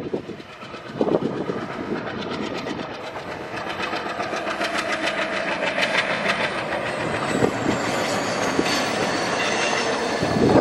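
A WDM-3A diesel-electric locomotive passing under power, its ALCO engine chugging, with wheels clattering over the rail joints as the passenger coaches roll by. The sound grows gradually louder as it approaches.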